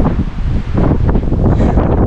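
Strong wind buffeting the microphone, a loud gusty rumble.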